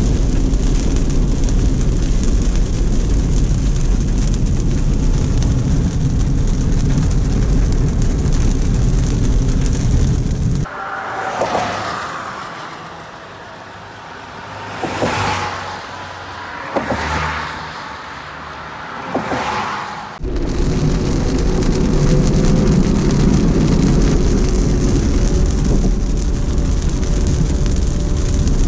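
Steady, loud storm noise of wind and rain on the microphone. About ten seconds in it cuts away to a quieter stretch where four vehicles pass one after another, each a swelling and fading tyre hiss on a wet road with a dropping pitch as it goes by. Then the loud storm noise cuts back in.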